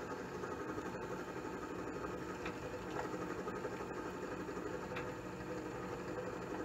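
Electric motor of a drilling machine running steadily with an even hum, with a few faint ticks, while the hole depth is set for drilling.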